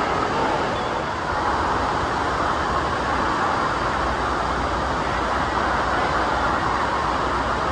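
Steady rushing of churning pool water echoing through an indoor water park hall, an even wash of noise with no breaks.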